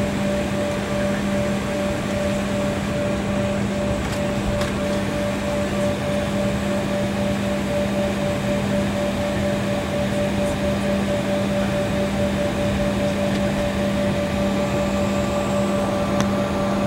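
Steady cabin noise of an airliner taxiing: jet engines and air-conditioning giving an even rush with a low hum and a higher steady hum under it.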